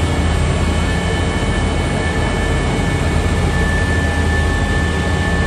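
Uber Boat river bus under way at cruising speed: a loud, steady engine drone with the rush of water and wind, and a thin steady whine above it.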